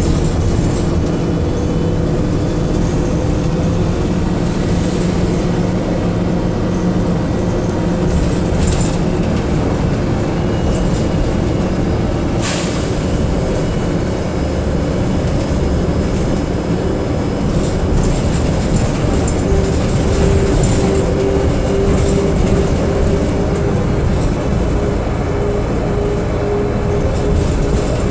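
DAF DB250 double-decker bus in motion, heard from the upper deck: a steady engine drone and road noise. There is a sharp clatter about twelve seconds in, and a steady whine comes in after about twenty seconds.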